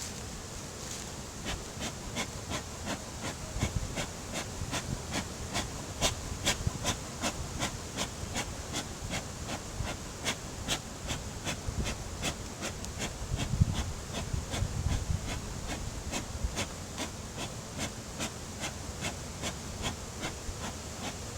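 Honeybees buzzing around a hive, with a run of sharp clicks, about two or three a second, over the buzz.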